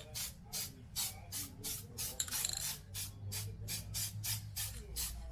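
Aerosol spray paint can hissing in rapid short bursts, about four a second, as paint goes onto a brake caliper.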